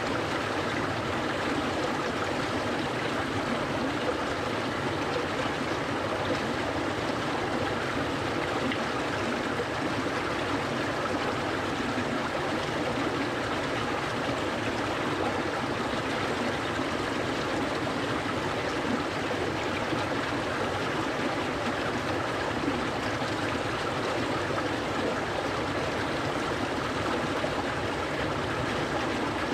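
Clear, cold mountain stream flowing steadily over rocks, a continuous even rush of water with trickling and gurgling.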